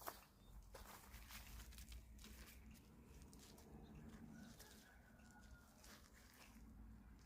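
Near silence: faint outdoor ambience with a soft click at the start, scattered faint ticks and a faint high whistled note, likely a distant bird, a little past halfway.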